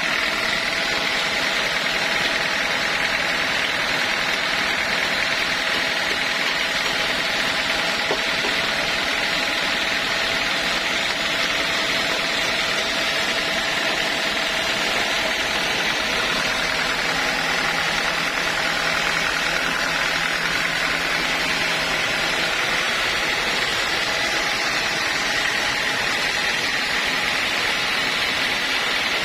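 Sawmill machinery running steadily, a constant mechanical noise with a steady high whine over it.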